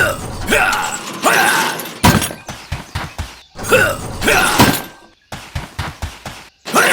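Bursts of crashing, clattering impacts with ringing, in three similar groups, each cut off abruptly.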